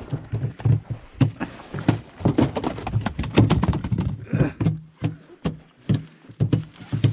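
Fish being handled on the floor of a small boat: irregular knocks and thuds, with a rustle about four seconds in.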